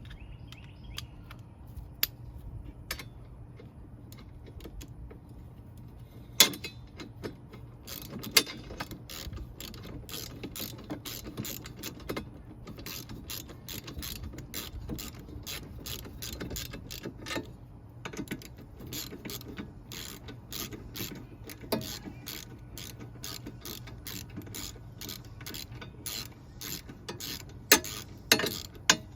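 Ratchet socket wrench clicking in long, quick runs of strokes as it turns a lawn mower blade bolt, with a few louder metal clacks near the start and near the end.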